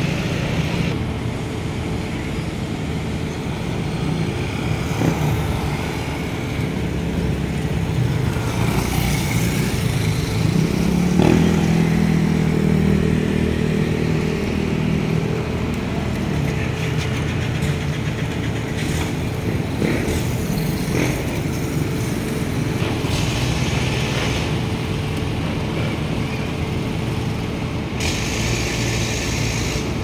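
Street traffic with small motorcycle engines running and passing. One engine passes loudest about eleven seconds in, over a steady rumble.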